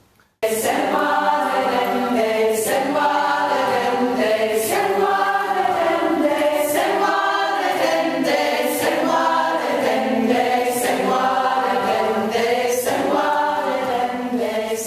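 A community choir singing together, many voices holding sustained notes. The singing cuts in suddenly just after the start.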